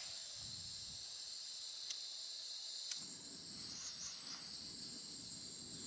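Portable gas camping stove burner hissing steadily while heating a pot of water, with a couple of faint clicks.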